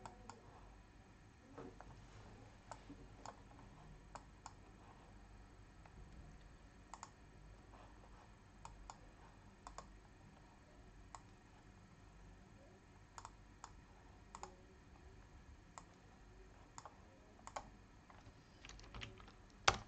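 Faint, irregular clicks of a computer mouse and keyboard over quiet room tone, growing denser near the end with one sharper click.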